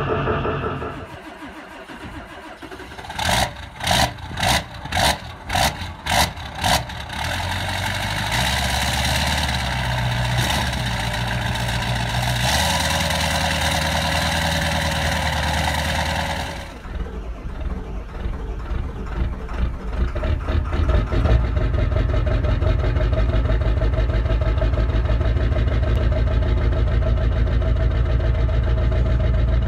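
Ford 7.3 L Power Stroke V8 turbo-diesel cranking over about eight slow, heavy turns on a cold start, then catching and running steadily at idle with a steady whine. After a cut, the diesel runs with a fast low pulsing that grows louder about twenty seconds in and then holds.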